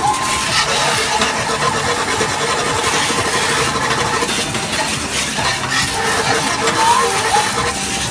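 Busy arcade din: a dense, steady wash of game-machine noise with faint electronic tones and a couple of short rising beeps, one about seven seconds in.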